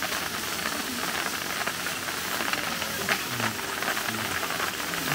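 Steady hiss of water, with faint scattered ticks through it.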